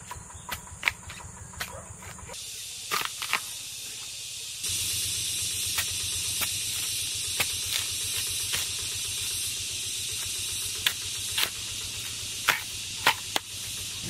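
Machete chopping at a bamboo shoot: a string of sharp chops, the loudest few near the end, over a steady hiss.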